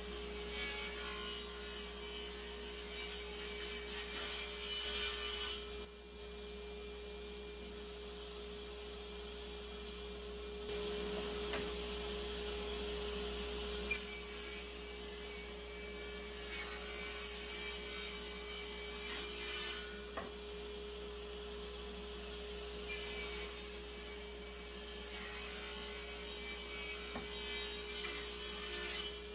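Table saw running with a steady hum while a crosscut sled carries a glued-up hardwood board through the blade. There are three cuts of about five seconds each: one at the start, one about halfway through, and one near the end.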